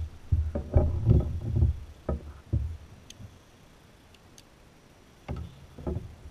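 A quick run of hollow knocks and bumps on a plastic fishing kayak's hull while the angler handles a landed largemouth bass and his rod, then a quieter stretch with a couple of faint ticks and two more bumps near the end.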